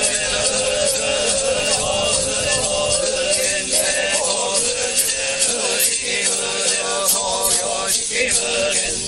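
Yamabushi (shugenja) chanting a Buddhist prayer in unison on a steady, drone-like pitch, with short breaks for breath, over a constant hiss.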